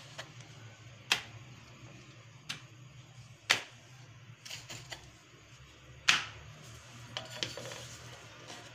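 Steel tumbler pressed down through rolled dough, knocking sharply on the wooden board beneath: about six separate knocks at uneven intervals, over a low steady hum.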